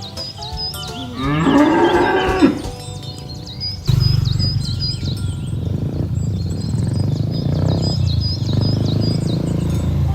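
A cow moos once, a call of a little over a second that rises and falls in pitch, about a second in, with small birds chirping repeatedly. A steady low hum starts about four seconds in.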